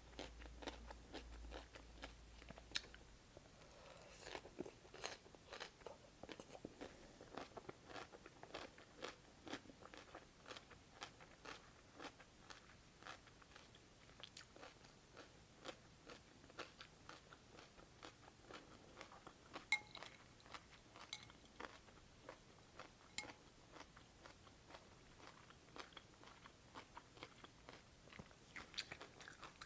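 Quiet, close-up chewing of crunchy cucumber in cold cucumber soup: a steady run of small wet crunches, about two a second, with one sharper crunch about two-thirds of the way through.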